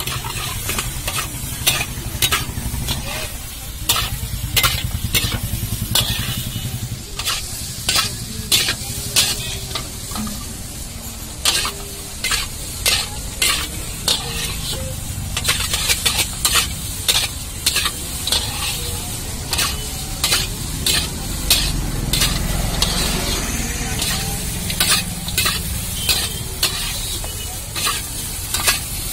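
Steel spatula scraping and clacking against an iron kadhai in irregular strokes as sago pearls are stir-fried and tossed, over a steady sizzle.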